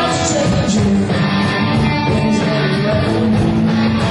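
Rock band playing live: guitar and drums.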